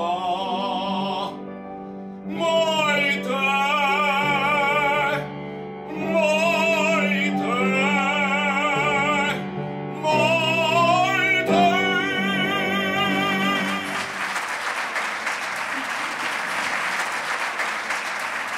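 A man singing in an operatic style with wide vibrato, accompanied by piano, in phrases with short breaths between them. The song ends about fourteen seconds in, and applause follows.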